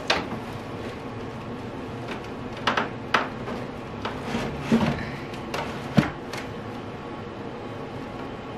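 A 50-inch flat-screen TV being handled and set onto a brick mantel: several sharp knocks and bumps as its frame meets the wall and ledge, with handling noise in between, the loudest knock about six seconds in.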